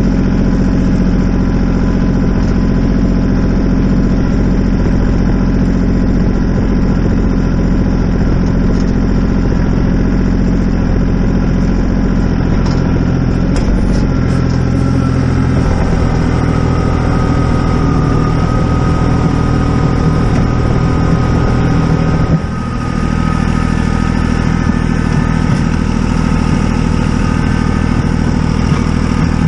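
An engine running steadily. Its pitch shifts about fifteen seconds in, and it dips briefly about twenty-two seconds in.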